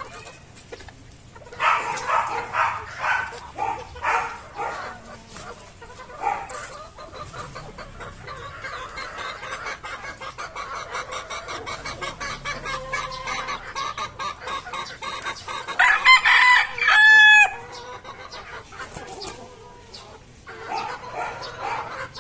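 Gamefowl roosters clucking and calling in their pens, with one loud rooster crow about three-quarters of the way through, the loudest sound.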